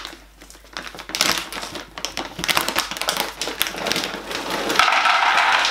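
A plastic pet-food bag crinkling and rustling as it is handled and opened, a dense run of small crackles that grows into a steady rustle near the end.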